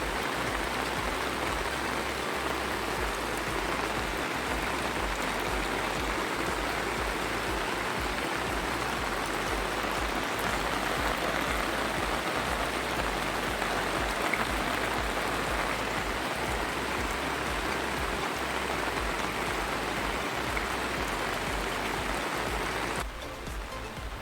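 Steady splashing of falling water from rain or rainwater pouring down, which drops suddenly to a quieter level near the end.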